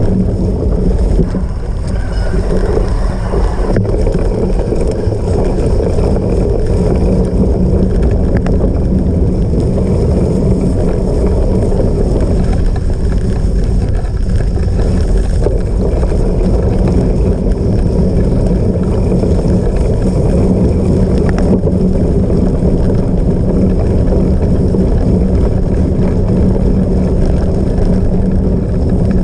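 Steady wind buffeting on the microphone over the rumble of a cyclocross bike riding off-road, with a constant low hum.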